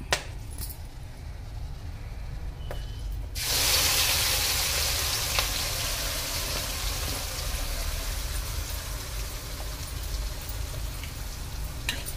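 Ground onion, tomato, ginger and garlic paste hitting hot oil in a kadai. A loud sizzle starts abruptly a little over three seconds in, then slowly eases off as more paste goes into the pan. A steady low hum runs underneath.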